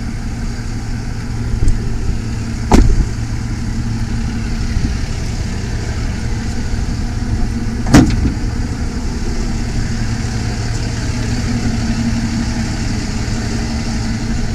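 A vehicle engine idling steadily, with two sharp knocks, one about three seconds in and a louder one about eight seconds in.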